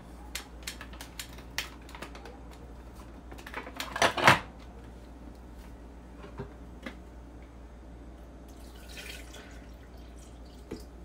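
Light clinks and knocks of kitchen dishes and utensils being handled, with one louder clatter about four seconds in and a brief soft hiss later on.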